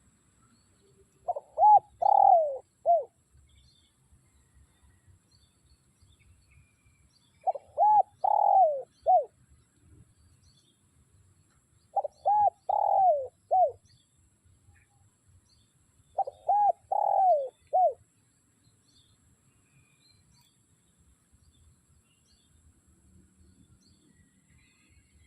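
Spotted dove cooing: four phrases of several notes each, one about every five seconds.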